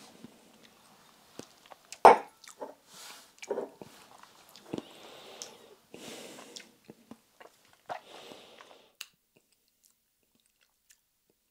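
Close-up mouth sounds of a person tasting a sip of whisky: wet lip smacks and tongue clicks as it is worked around the mouth, one louder click about two seconds in, and a few breathy rushes of air in between. The sounds stop about nine seconds in.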